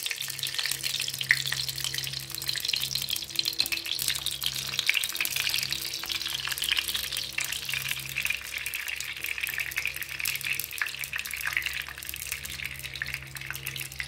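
Solid butter ghee heating in a steel pot, sizzling with a steady crackling hiss as it melts into hot fat.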